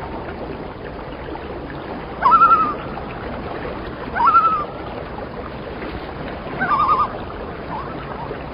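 Common loon calls over a steady rush of water: four short calls about two seconds apart, each rising and then wavering, the third a rapid tremolo.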